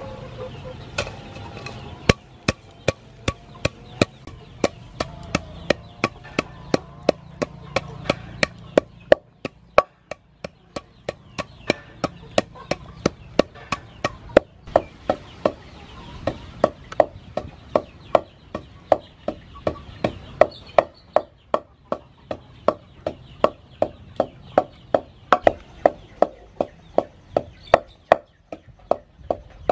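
Long wooden pestle pounding black peppercorns in a wooden mortar: steady, even knocks about two to three a second, starting about two seconds in.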